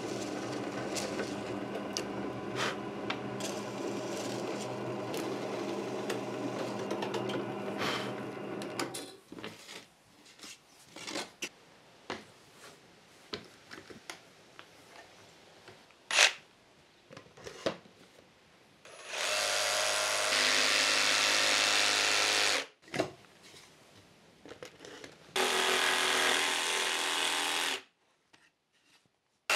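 A benchtop drill press runs with a steady hum for about nine seconds, its bit boring holes in plywood. Then come a few quiet knocks and clicks from handling the workpiece, with one sharp knock near the middle. Near the end an AEG jigsaw cuts plywood in two runs of about three seconds each.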